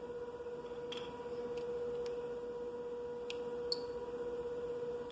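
Steady electronic hum, a constant mid-pitched tone, with a few faint light clicks, such as handling of the devices.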